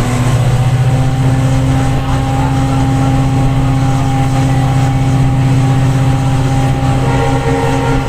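EMD diesel-electric locomotive's two-stroke engine humming steadily under power as the train accelerates, its pitch stepping up slightly just after the start. Higher tones join in near the end.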